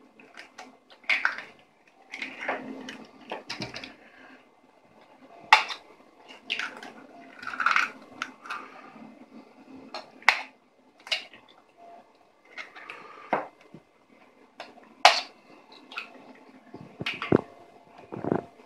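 Raw eggs being cracked with a kitchen knife: several sharp taps of the blade on the shells at uneven intervals, with the shells breaking and light handling noise between them.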